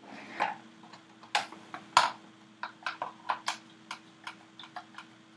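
A run of small, sharp clicks and taps at an uneven pace, about fifteen in all, the loudest about two seconds in.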